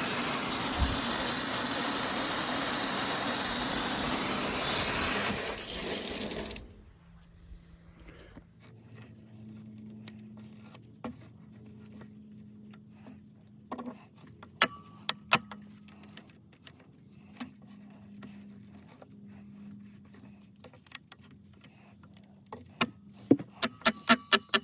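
Water rushing out under pressure as the well's pressure tank is drained, a steady loud hiss that stops abruptly about six and a half seconds in. Then scattered small clicks and taps of fittings being handled, with a quick run of clicks near the end.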